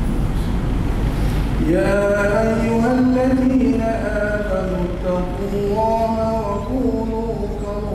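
A man's voice chanting a religious recitation in long held notes that bend slowly in pitch, beginning about two seconds in over a steady low rumble.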